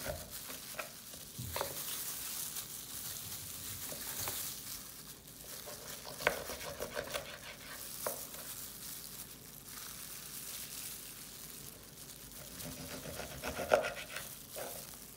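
Knife cutting raw chicken wings apart at the joints on a plastic cutting board, with a few sharp knocks of the blade on the board. Disposable plastic gloves crinkle and rustle throughout.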